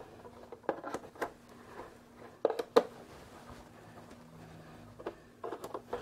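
Handling noise from a plastic radio-control transmitter: scattered light clicks and knocks of its hard plastic case as it is turned over and set down, with a small cluster of clicks near the end.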